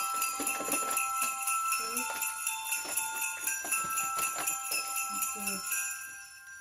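Background music with jingle bells and held bell-like melody notes, fading out near the end.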